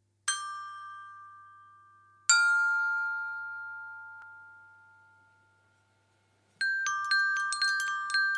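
Metal chimes ringing: two single clear notes about two seconds apart, each dying away slowly, then from about six and a half seconds in a quick irregular jangle of many notes at several pitches, about four strikes a second.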